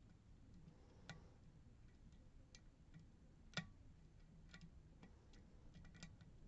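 Faint, irregular small clicks of a lock pick working the wafers of a Miwa DS lock, with one sharper click about three and a half seconds in.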